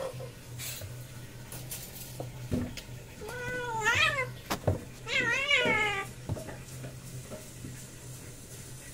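A cat meowing twice during a play fight between a mother cat and her kitten: two drawn-out calls, each rising and falling in pitch, about a second apart, with a sharp knock between them.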